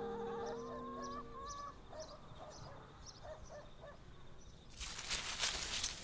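Short bird-like chirps repeating about twice a second over a faint background, with a steady hum under them for the first second and a half. About five seconds in, a loud rough hiss takes over and is the loudest thing here.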